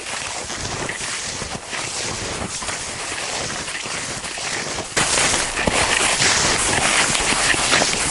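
Footsteps through snow while walking, over a steady hiss that suddenly gets louder about five seconds in.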